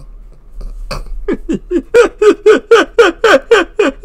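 A man laughing hard: a run of short ha-ha bursts, about four a second, each dropping in pitch, starting about a second in and growing louder.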